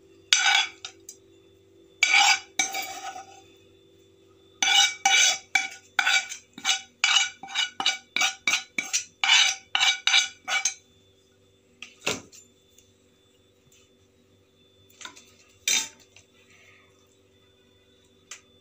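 Steel spoon scraping vegetables out of a frying pan and onto a steel plate, with ringing metal clinks. There are a few clinks near the start, then a quick run of about two a second in the middle, then single clinks near the end.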